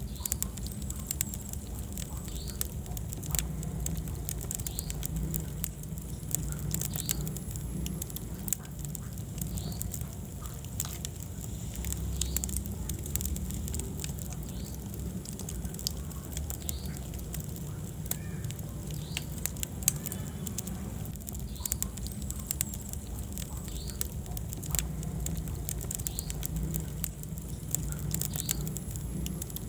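Wood fire burning in a fireplace, crackling with frequent sharp irregular pops over a steady low rumble.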